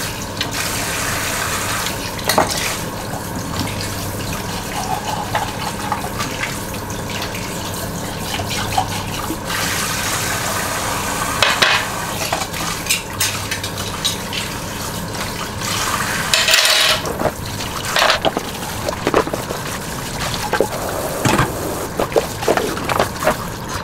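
Kitchen tap running into a sink while dishes and a glass jug are washed by hand, with clinks of dishes against the sink. A steady low hum underneath stops about two-thirds of the way through.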